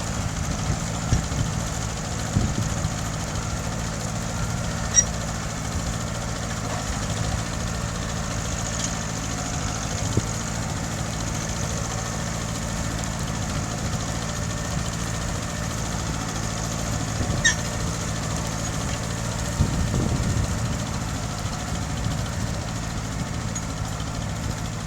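Mitsubishi tractor engine running steadily under ploughing, with a few short sharp knocks along the way.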